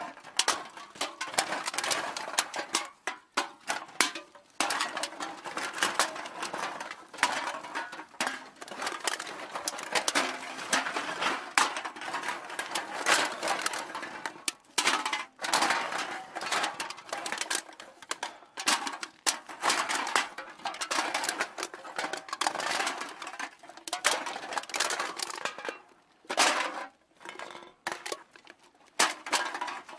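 Aluminium cans clattering and knocking against each other: a dense, irregular run of light metallic clinks and rattles, thinning to a few separate knocks near the end.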